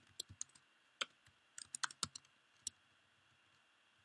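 Faint, sparse keystrokes on a computer keyboard: about ten short clicks at irregular intervals, spread over the first three seconds.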